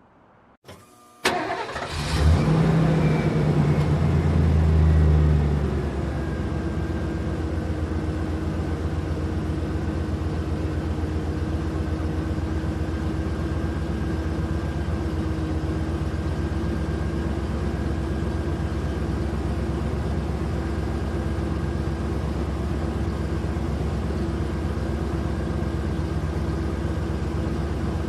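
A vehicle engine starting: a click, a brief crank, then it catches about two seconds in. It runs at a fast idle for a few seconds and drops to a steady idle about six seconds in.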